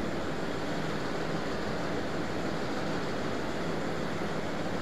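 Steady hiss with a low hum underneath: background room noise, unchanging throughout.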